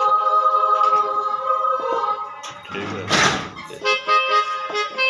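Roland E-09 arranger keyboard sounding a held chord, then a brief breathy noise about three seconds in, followed by short detached notes played on its tenor saxophone tone ('Blow Tenor').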